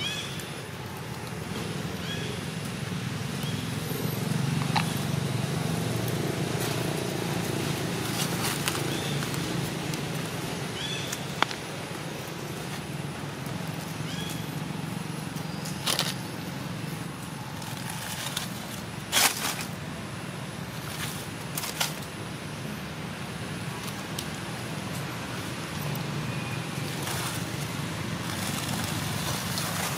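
Outdoor ambience dominated by a steady low rumble of vehicle traffic. A few short high chirps come in the first half, and scattered clicks and rustles run throughout, two sharper ones about 16 and 19 seconds in.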